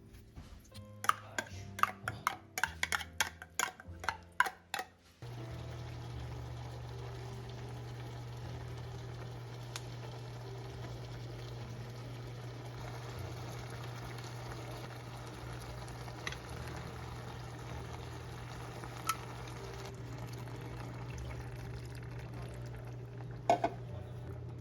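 Knife chopping on a cutting board in quick, irregular strokes, then, about five seconds in, a steady sizzle of food frying in a pan with a few utensil taps.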